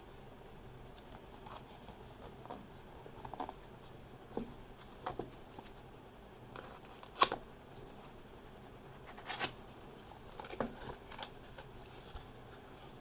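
Cardboard box and packaging being opened and handled: irregular scrapes, rustles and knocks, with a sharp click about seven seconds in.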